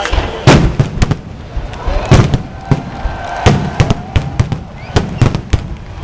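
A rapid, irregular series of about a dozen loud bangs and pops, each with a short echoing tail.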